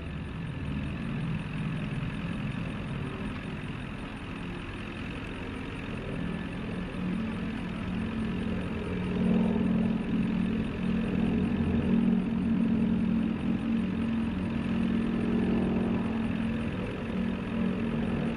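Three North American SNJ/T-6 Texans flying in formation, their 600-horsepower Pratt & Whitney R-1340 nine-cylinder radial engines running steadily and growing louder as the planes approach, loudest from about halfway through.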